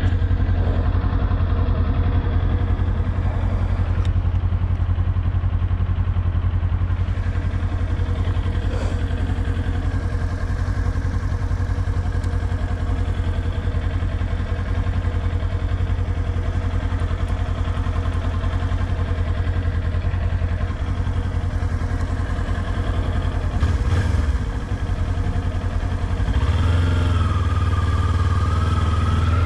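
Kawasaki Ninja 400's parallel-twin engine idling steadily with the bike stopped. Near the end the sound grows a little louder, with a wavering tone added.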